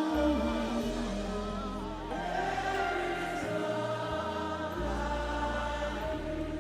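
Slow gospel worship music: sustained chords and deep held bass notes, with voices singing long, wavering lines over them.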